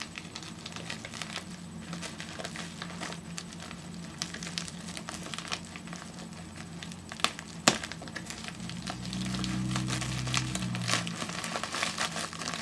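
Packing material crinkling and rustling as a mail-order package is opened by hand, with a couple of sharp snaps a little past halfway. A low steady hum comes in about two-thirds of the way through and runs alongside the rustling.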